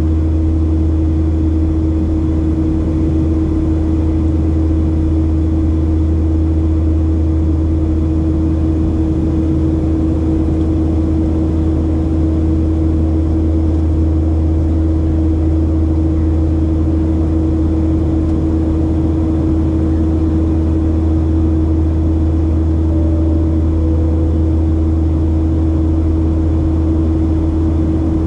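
Steady cabin drone of a Boeing 737-700 in flight: the CFM56-7B engines and airflow make a deep hum with a steady mid-pitched tone on top.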